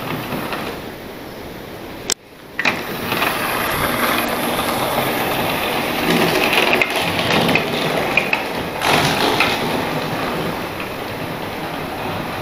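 Model railway locomotive running on its track: a small electric motor whirring with the wheels rattling over the rails. About two seconds in there is a sharp click, the sound drops out for a moment, then resumes.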